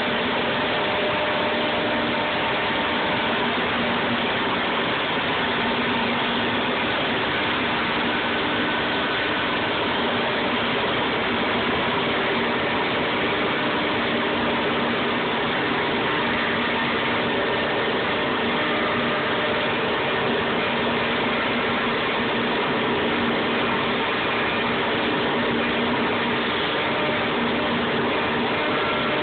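VR 1005 TT CNC panel machining centre running: a steady, dense machine whir of spindles and dust extraction, with faint steady whining tones over it.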